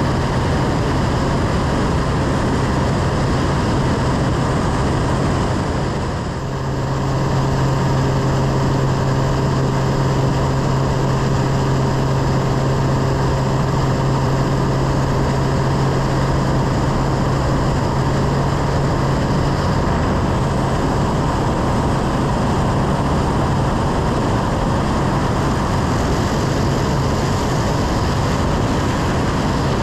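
Aerobatic plane's piston engine and propeller running steadily in flight, under the rush of airflow over a wing-mounted camera. The sound dips briefly about six seconds in, then holds steady again.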